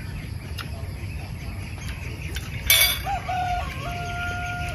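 A rooster crows: a short loud harsh burst about two and a half seconds in, then a long held call that steps up in pitch partway through and carries on past the end. A steady insect drone sits underneath.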